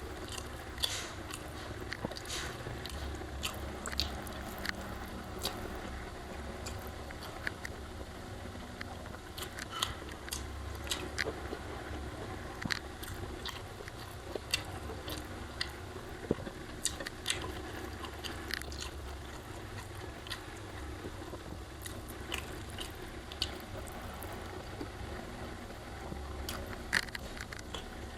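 Close-up eating sounds of a person chewing a mouthful of nasi Padang, with irregular wet smacks and small crunches. A steady low hum runs underneath.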